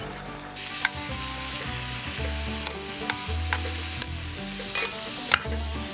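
Beef tongue and crushed garlic searing in rendered fat in an iron frying pan. The steady sizzle swells up about half a second in, with a few sharp pops of spattering fat.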